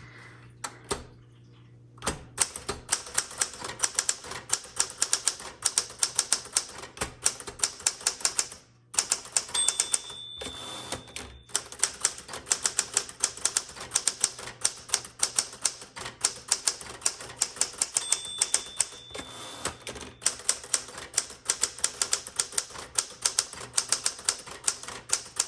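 Smith-Corona Galaxie II manual typewriter being typed on at a fast, steady pace, key strikes clattering several times a second. Its margin bell rings twice, about ten seconds in and again near the eighteen-second mark, signalling the end of a line.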